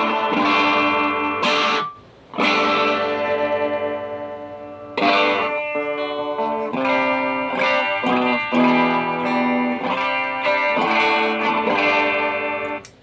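Electric guitar played through a pedalboard of effects, strumming and letting chords ring. There is a brief break about two seconds in, and the playing cuts off just before the end.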